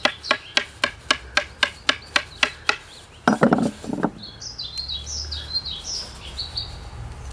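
Wooden knife handle tapping rhythmically on the bark of a fresh willow stick, about four taps a second, beating the sappy bark loose from the wood to make a willow whistle. The tapping stops about three seconds in with a brief low sound, and a small bird then chirps a few short notes.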